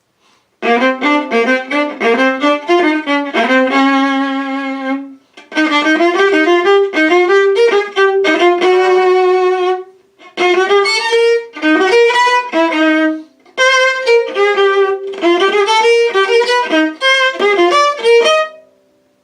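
Viola playing jazz: quick, lively melodic runs in several phrases, with short breaks between them.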